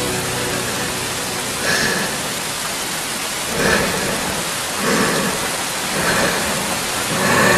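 A steady rush of noise like heavy rain, swelling briefly about five times, as in a rain-and-thunder sound effect.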